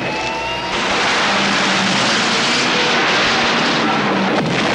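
Stunt car crash: an overturned car sliding along on its roof, a loud steady rushing, scraping noise that thickens just under a second in.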